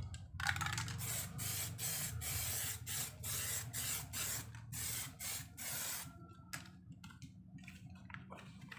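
Aerosol spray-paint can spraying a motorcycle rim in a run of short hissing bursts for about six seconds, then stopping, leaving a few faint knocks as the wheel is turned by hand.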